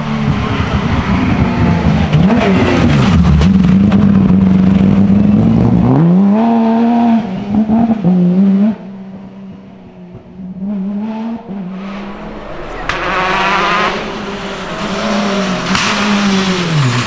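Rally cars at speed on a stage. A Porsche 911 rally car's flat-six goes by loud, its revs dipping and climbing through gear changes, then fades away about nine seconds in. From about twelve seconds a Peugeot 208 rally car approaches, growing louder with its revs rising and falling.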